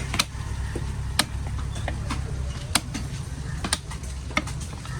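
Sharp knocks of a fish-cutting knife striking a wooden cutting block, irregular and about one a second, over a steady low background rumble.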